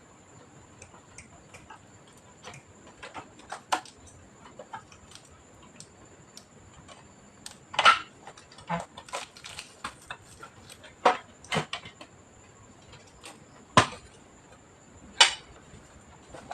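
Irregular small clicks and taps of plastic parts, screws and tools being handled while an all-in-one PC is taken apart, with a few sharper, louder clicks in the second half.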